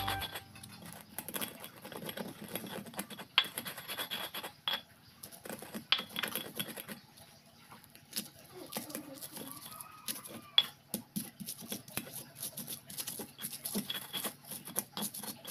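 Stone pestle grinding and crushing peppercorns, salt, garlic and candlenut on a flat stone mortar (cobek and ulekan): irregular gritty scraping of stone on stone, with sharper knocks now and then.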